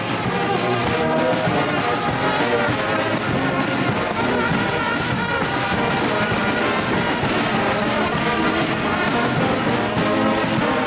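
Marching brass band playing, with sousaphones and other brass horns over drums.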